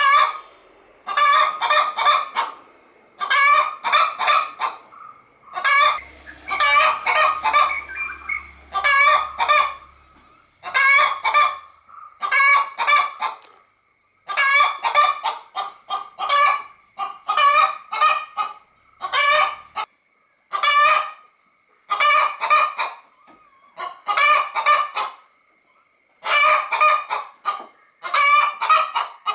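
Domestic hen calling in short groups of quick, pitched clucking notes, repeated in an even rhythm about once a second.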